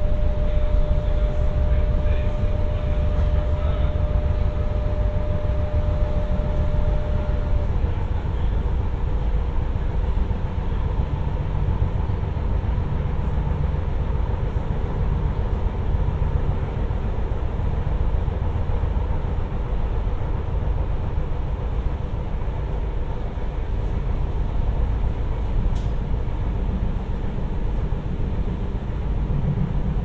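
Renfe class 447 electric commuter train running, a steady low rumble with a steady whine that stops about seven seconds in and a fainter, higher tone after it.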